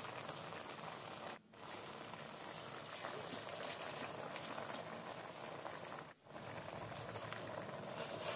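Milkfish broth with salt, ginger and tomato boiling in a pot under a layer of pechay leaves: a steady bubbling hiss. The sound drops out briefly twice, about one and a half and six seconds in.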